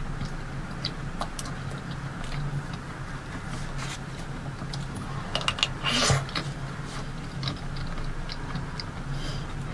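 Close-miked eating of a fruit-shaped mousse dessert: scattered small mouth and chewing clicks, with one louder bite about six seconds in, over a steady low hum.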